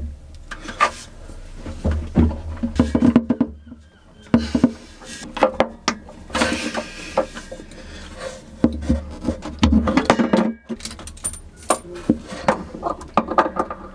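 Irregular clicks, knocks and rubbing of metal gas fittings being handled as the old butane gas regulator is worked loose and unscrewed, with a stretch of scraping about halfway through.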